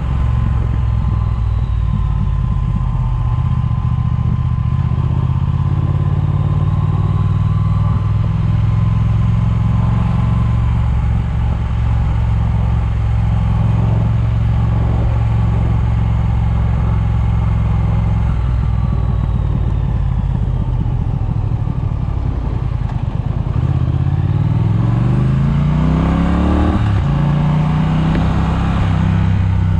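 Triumph motorcycle engine running under way, with wind rush on a chest-mounted microphone. It holds a steady pitch for most of the time, then near the end the revs climb, drop suddenly at an upshift and settle.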